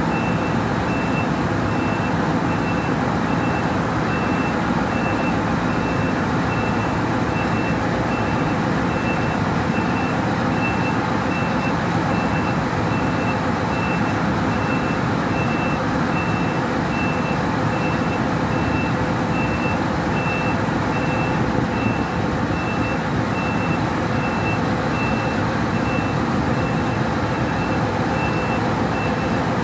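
Truck reversing alarm giving an even run of short high beeps over the steady low running of a Scania 164L 580 V8 engine, as the lorry backs up slowly.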